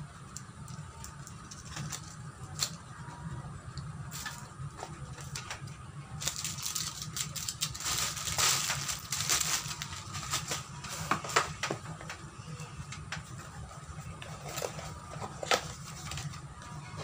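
Cardboard box and plastic packaging being handled and opened: scattered small clicks and rustles, with a denser spell of crinkling starting about six seconds in and lasting about four seconds, over a low steady hum.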